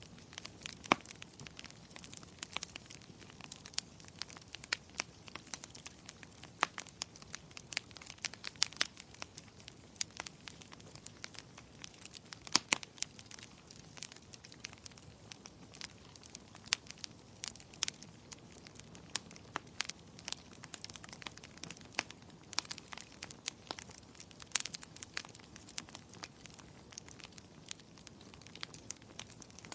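Wood fire burning in a fireplace: irregular sharp crackles and pops, several a second, over a faint steady hiss.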